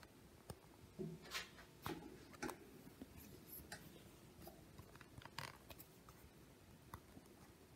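Near silence with faint scattered clicks and short rustles of a phone being handled and set in place.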